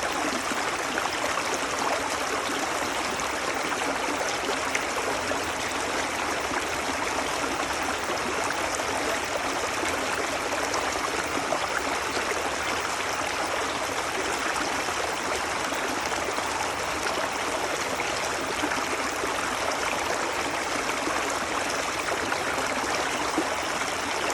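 A creek flowing over its bed: a steady babble of running water, full of tiny splashes and trickles.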